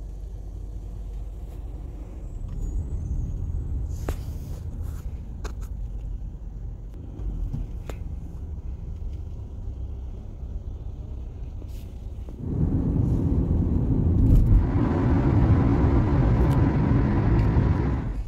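Low, steady rumble of road traffic, including the Mack front-loader garbage truck driving by. About twelve seconds in, a much louder rush of road and wind noise sets in, as from a car moving at speed, and drops away near the end.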